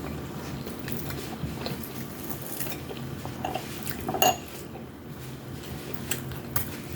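Cutlery clinking and scraping against plates during a meal, in scattered light taps, with one louder ringing clink about four seconds in.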